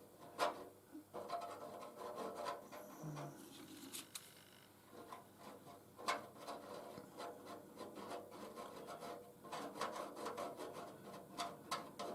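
Faint rubbing and scraping on metal, broken by scattered sharp clicks and taps, as the copper lamp top is worked on for solder patching.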